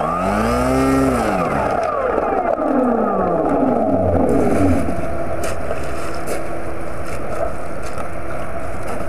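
Onboard sound of a model Macchi seaplane's motor, heard close up, revving up and down several times as it taxis in the shallows. It then settles into a steadier run with a few sharp clicks as the model comes up onto the bank.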